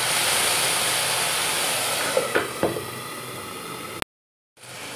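Loud sizzling hiss of a watery cumin-and-ginger paste hitting hot oil in a frying pan with capsicum and tomato, fading over about three seconds. A couple of short sounds come about two seconds in, and near the end the sound breaks off for a moment and returns as a quieter sizzle.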